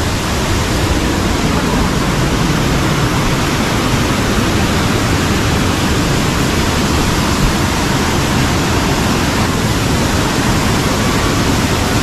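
Waterfall's water rushing and splashing: a loud, steady, even noise that does not let up.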